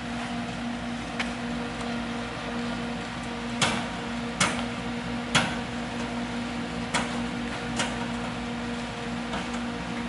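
Vitronics GP-104 belt furnace running: a steady fan hum with an even hiss. About half a dozen sharp clicks come at irregular intervals, the loudest in the middle.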